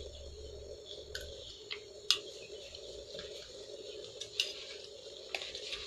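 A few light clinks of a metal fork and spoon against plates and plastic bowls while eating, the sharpest about two seconds in, over a faint steady hum.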